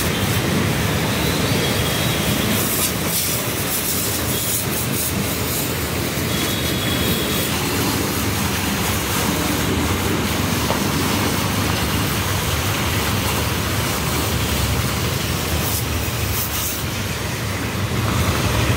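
High-pressure water jet from a hose spraying mud off a tractor's tyres and body, a steady hiss over the constant hum of the washing pump's motor.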